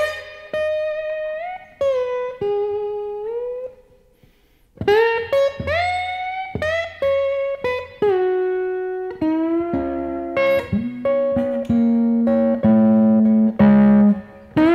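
Electric guitar in open E tuning played with a slide: a blues turnaround lick in C sharp, its notes gliding up into pitch. The lick breaks off briefly about four seconds in, and the second half rests on lower held notes.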